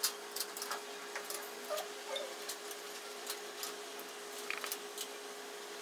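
Marker pen drawing on a whiteboard: faint, irregular clicks and scratches as the tip moves over the surface and lifts, with a couple of brief squeaks about two seconds in. A steady low hum runs underneath.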